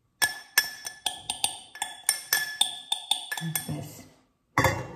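Dishes and glassware clinking together, about a dozen sharp strikes in quick succession, each ringing briefly, stopping about four seconds in, then another clatter near the end.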